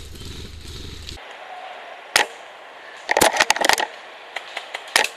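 Airsoft guns firing: a single sharp crack about two seconds in, a rapid rattling burst lasting under a second near the middle, and another single crack near the end.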